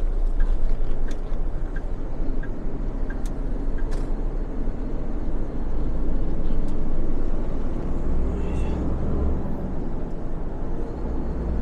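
Hino heavy truck's diesel engine and road noise heard inside the cab while driving, a steady low rumble. A faint regular tick, about one every 0.7 seconds, runs through the first few seconds.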